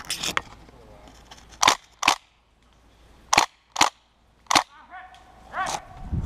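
Airsoft guns firing single shots: about eight sharp cracks at irregular spacing, several in quick pairs.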